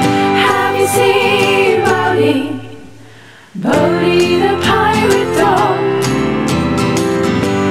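Children's sing-along theme song: singing over instrumental backing. The music fades down about two and a half seconds in and comes back in suddenly about a second later.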